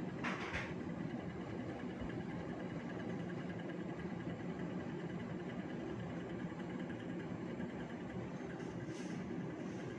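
Hitachi RA-36NV window air conditioner running with a steady droning hum and vibration. This is the abnormal noise the owner reports as a fault. A brief higher-pitched noise comes about half a second in.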